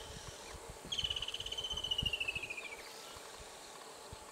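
A high, rapidly pulsed trill from a wild animal, lasting about two seconds and falling slightly in pitch, over a faint natural background.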